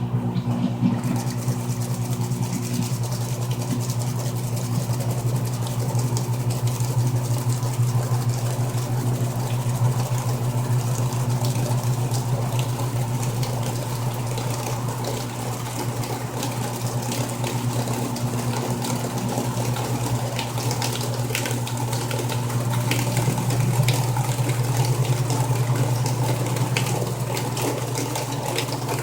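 Frigidaire Gallery Series top-loading washing machine running: a steady motor hum over the sound of water moving in the tub, with small clicks and rattles.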